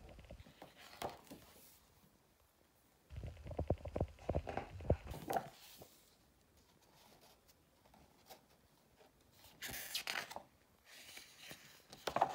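Pages of a large photography book being turned by hand: paper rustling and swishing, with a cluster of soft handling knocks a few seconds in and a single page swish about two-thirds of the way through.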